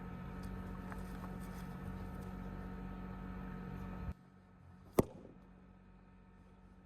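A steady background hiss and hum that cuts off abruptly about four seconds in, then a single sharp, loud strike about five seconds in, with a short ringing tail, as of an axe splitting a log of firewood.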